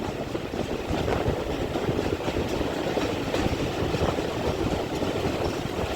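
Steam-hauled heritage train running along the line: a steady rumble of wheels on the track with faint intermittent clicks.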